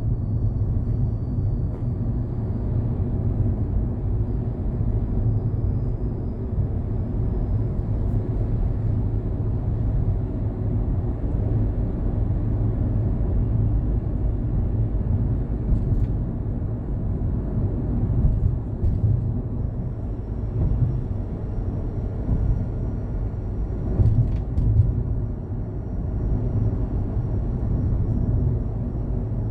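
Daihatsu Hijet Cargo kei van's engine running steadily as a low rumble, with a few faint sharp ticks now and then.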